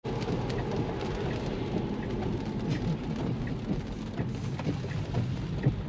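Cabin noise of a Tesla electric car driving in the rain: a steady hiss of tyres on the wet road and rain on the glass and roof, with scattered taps of raindrops.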